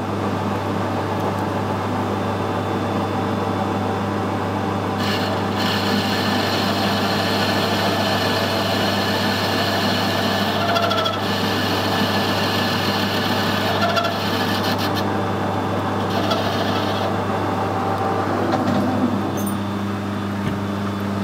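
Metal lathe running with a steady motor hum while a carbide turning tool cuts the angled valve seat of a Sentinel steam waggon valve, adding a rougher, higher scraping cutting noise in spells through the middle. The spindle stops near the end.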